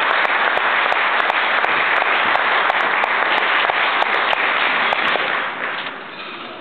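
Audience applauding, dense clapping with sharp individual claps standing out, dying down about five and a half seconds in.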